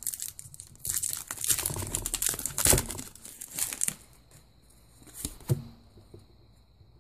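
A foil Pokémon trading-card booster pack being torn open and crinkled in the hands, crackling for about four seconds. After that, quieter handling of the cards, with a couple of small clicks.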